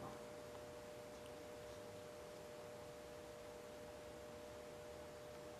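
Near silence: room tone with a faint, steady two-note hum.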